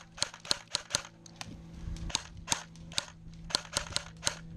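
Airsoft guns firing: an irregular string of sharp pops, a dozen or more, some coming in quick runs of several shots.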